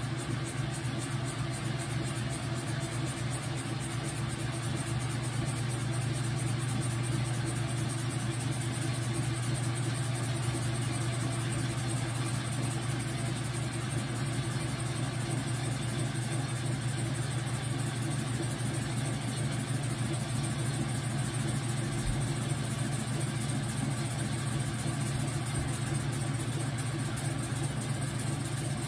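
Whirlpool washing machine running: a steady low motor hum with a hiss over it.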